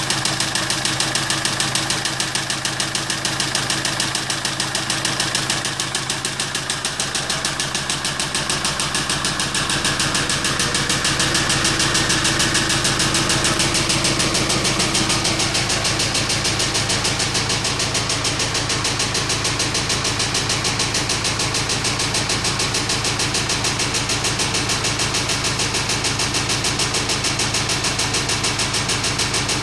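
Kia Sorento engine running steadily with a fast, even knocking. It grows slightly louder about eleven seconds in.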